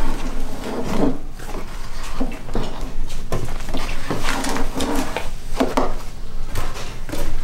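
Irregular scraping and knocking of a metal scraper blade spreading thick white epoxy along a countertop's taped edge.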